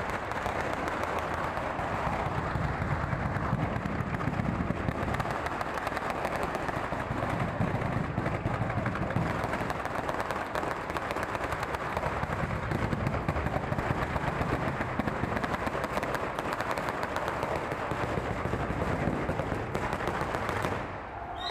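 Batteria alla bolognese, a long chain of firecrackers strung over the street, going off in a dense, unbroken rattle of rapid bangs. The noise dips briefly just before the end.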